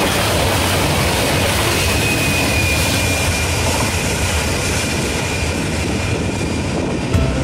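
Freight train's last boxcars rolling past and away: a steady rumble of wheels on rail, with a thin high wheel squeal from about two to four seconds in.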